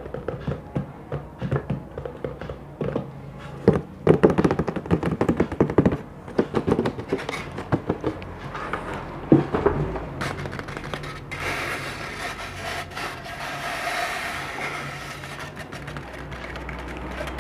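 ASMR trigger sounds on hard objects: rapid taps and knocks for about ten seconds, then a continuous, denser scratching texture.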